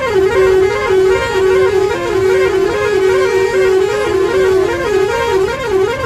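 Telolet basuri musical bus horn playing a fast warbling melody, its pitch trilling rapidly up and down without a break.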